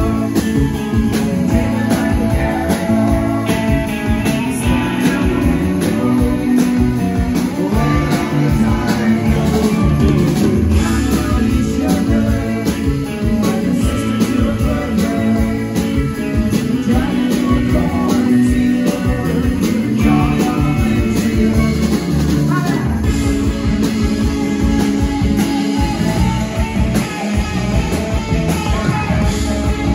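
Rock band playing live: electric guitar, electric bass, keyboards and drums, with a steady beat, heard loud through the venue's PA from the audience.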